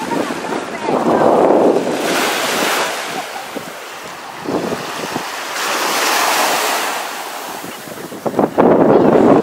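Wind buffeting the microphone in gusts over the wash of gentle surf on a sandy shore.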